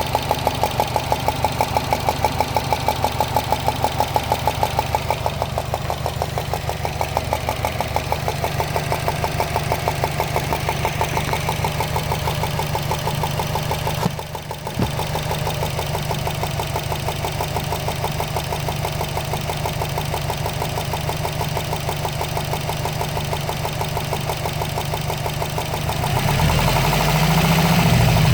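2013 Subaru Impreza WRX's turbocharged flat-four engine idling with a loud, rapid, even ticking, like a golf ball sliding around inside the engine, which the owner places near the turbo but cannot trace. The engine grows louder near the end.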